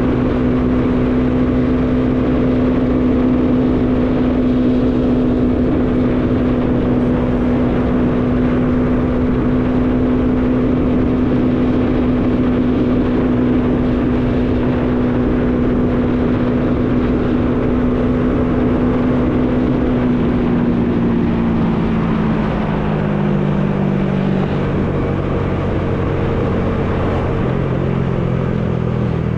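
Bajaj Dominar 400 single-cylinder engine running at steady revs under a steady rush of wind noise. About twenty seconds in, the engine pitch drops in a few steps as the bike slows down, then runs on at lower revs.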